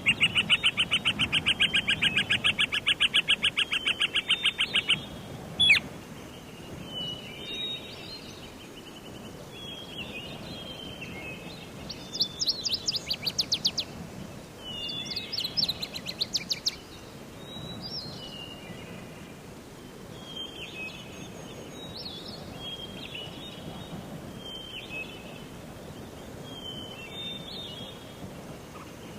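Songbirds singing in a forest: a loud, rapid trill of repeated notes for the first five seconds, two shorter, higher trills about midway, and short chirping phrases every second or two, over faint steady background noise.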